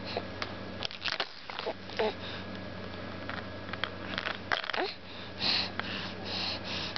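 A baby breathing and sniffling right at the microphone, with scattered small clicks. There are two brief soft vocal sounds, one about two seconds in and a rising one past the middle, and breathy puffs near the end.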